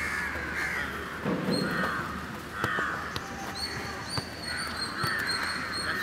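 Crows cawing over and over, harsh calls about once a second, with a couple of sharp knocks of a football being kicked.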